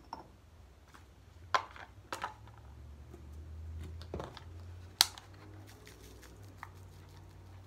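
Scattered light clicks and knocks of a metal container, its lid and a glass bottle and jar being handled and set down on a brick ledge, the sharpest knock about five seconds in.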